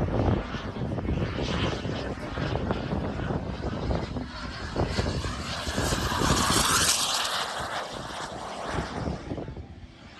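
Turbine engine of a radio-controlled model jet flying past: a rushing hiss and whine that grows to its loudest about six to seven seconds in, then fades away near the end.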